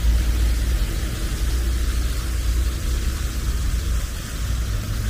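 Steady road traffic on a city avenue: a continuous low rumble of car engines with an even hiss of passing traffic above it.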